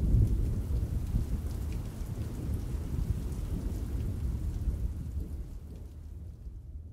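Rain and thunder: a deep rolling rumble under a light hiss of rain with scattered drop ticks, slowly fading out.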